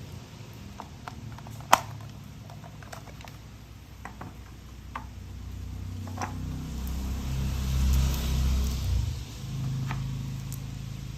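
Handling of toy parts: scattered light clicks and taps, one sharper than the rest near the start. This is followed by a low rumble with a steady low hum that swells for a few seconds and eases off.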